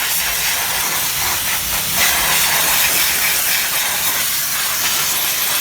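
Steady, loud hissing spray of a cleaning jet on a dirty engine bay, stopping abruptly at the end.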